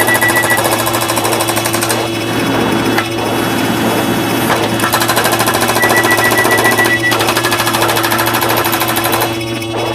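Dense pile-up of overlapping, rapidly repeated cartoon and alarm sound effects, forming a fast rattling clatter with steady alarm tones held over it and a high beeping tone that comes and goes.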